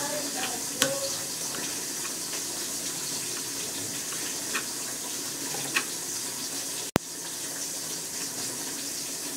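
A steady watery hiss with a few soft knife taps on a plastic cutting board as a green chili is sliced. There is a sharp click about seven seconds in.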